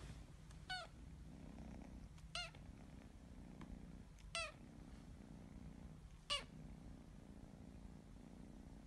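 Kitten purring steadily while having its chin scratched, a soft low rumble, with four brief high squeaks roughly two seconds apart.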